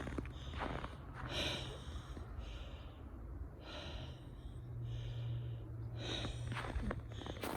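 Footsteps of a person walking on snow and ice, heard near the start and again near the end, with breathing close to the microphone in between.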